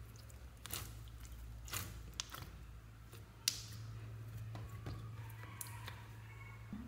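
Clear slime being pressed and smoothed over a bowl of foam beads, giving scattered sticky crackles and pops, the sharpest about halfway through, over a steady low hum.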